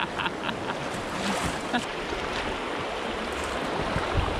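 River rapids rushing and splashing around a kayak as it runs a riffle, a steady, even rush of water.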